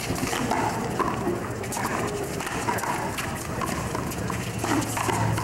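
Handball rally on a concrete three-wall court: the hard rubber ball smacks repeatedly off the wall and the players' gloved hands, among footsteps on concrete, with voices in the background.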